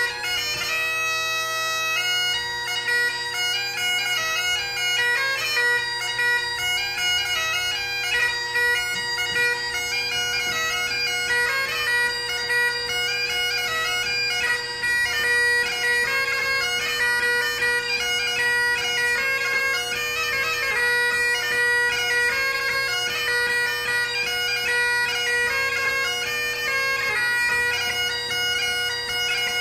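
Great Highland bagpipe played solo: the drones hold a steady tone under a chanter melody that moves quickly from note to note.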